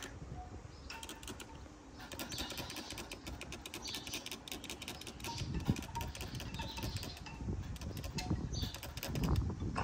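Hand trigger spray bottle squeezed rapidly over and over, a quick run of short spritzing clicks, wetting a glued patch on a PVC inflatable boat tube to check the repair for leaks.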